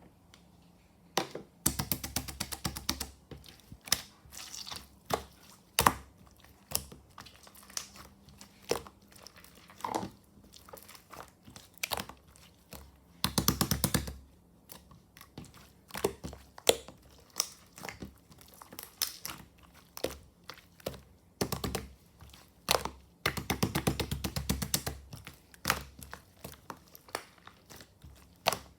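A squishy ball filled with liquid chocolate slime being squeezed and stretched by hand: sticky crinkling and crackling in three longer dense rattles, with many separate sharp clicks and pops between them.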